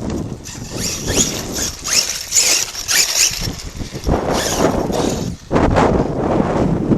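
Brushless motor of an RC monster truck (Arrma Kraton 6S running an 8S system), whining up and down in pitch with bursts of throttle. Near the middle there are loud rough bursts as the tyres scrabble on dirt.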